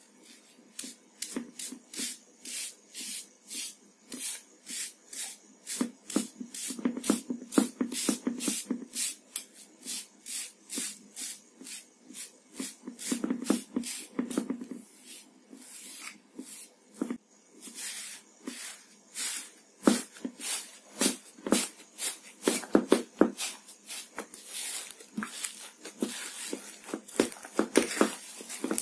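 Hardened crust of soft iceberg slime crackling and crunching as it is pressed in with a small toy racket and then broken up by fingers: a long run of sharp crackles, a few a second, with softer squelches in between.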